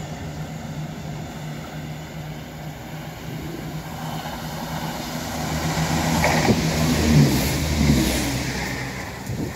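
Passenger diesel multiple unit approaching and running past at speed: its engine and wheels build to a loud peak about seven seconds in, then fall away. A steady low diesel drone sits under the first half.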